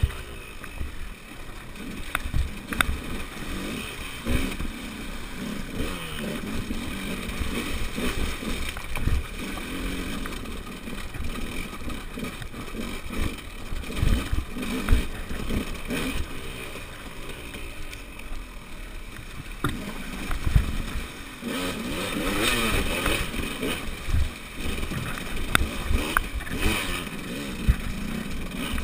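Enduro motorcycle engine running under load, its pitch rising and falling as the throttle is worked over rough rocky ground, with frequent knocks and clatter from the bike jolting over rocks.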